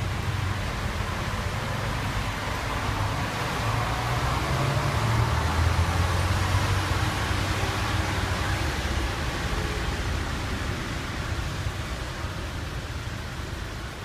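Heavy rain falling on wet pavement and the station canopy, a steady hiss that swells a little around the middle, over a low rumble.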